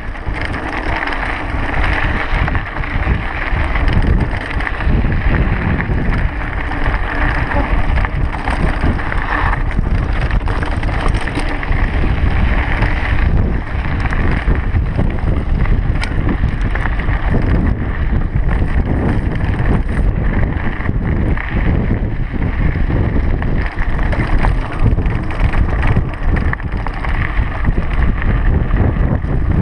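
Wind buffeting the microphone of a camera on a mountain bike in motion, over tyres crunching on a loose, stony dirt trail and the bike rattling with many small knocks as it rolls over the rough ground.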